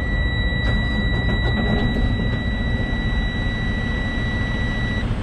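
Western Star semi truck's diesel engine running at idle, just started by a technician manually grounding a wire to get past a wiring fault. A steady high-pitched warning tone sounds over it and cuts off near the end.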